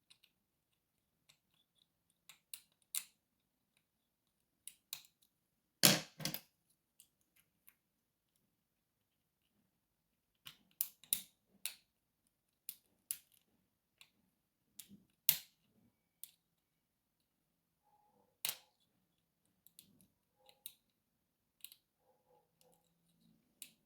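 Scattered sharp metallic clicks and ticks of a lock being picked: pick and tension wrench working in a padlock's keyway, with one louder click about six seconds in.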